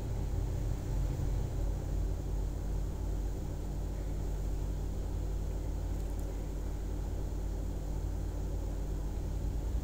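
Steady low background rumble with a faint hum, no distinct events.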